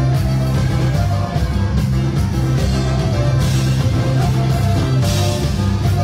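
Live band playing dance music: guitar and a moving bass line over drums keeping a steady beat.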